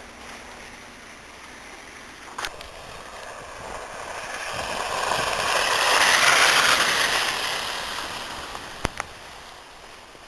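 A vehicle passing on a slushy, snow-covered road, its tyres hissing through the slush, growing louder to a peak about six seconds in and then fading away. Two brief clicks, one before the pass and one after.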